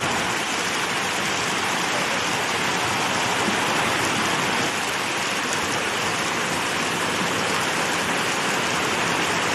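Water and fish fry being poured from buckets and a plastic crate into a pond: a steady splashing rush of water.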